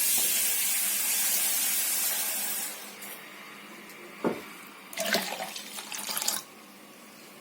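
Half a litre of water poured into an electric blender jar, a steady splashing pour lasting about three seconds. It is followed by a knock about four seconds in and a short clatter of handling a second later.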